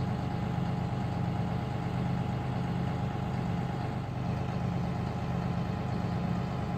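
Diesel engine of a John Deere utility tractor idling steadily.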